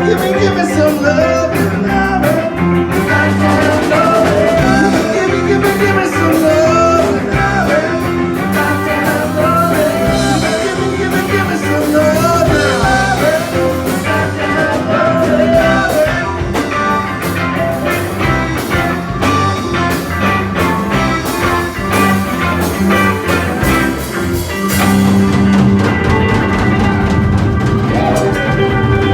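Rock-and-roll band playing, with a wavering lead vocal or guitar line over bass and drums. About 25 seconds in, the band moves to long held chords.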